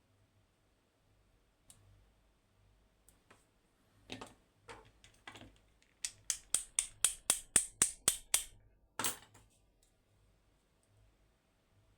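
Small metal lock parts and tools clicking and tapping while the lock is being taken apart. There are a few scattered clicks, then a quick run of about a dozen sharp taps at roughly five a second, and one more tap a moment later.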